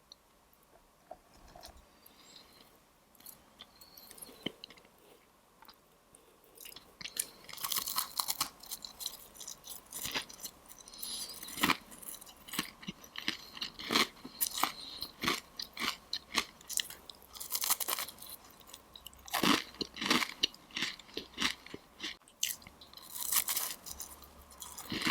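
Close-miked eating of a crisp Chinese pastry: faint for the first few seconds, then crisp bites and crunchy chewing in quick clusters from about seven seconds in.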